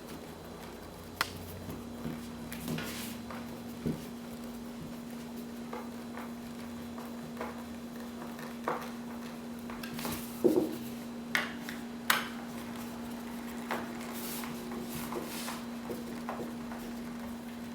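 Scattered light clicks and knocks of hands working a plastic wireless motion sensor and its backing plate, which is being screwed into a ceiling corner, over a steady low hum.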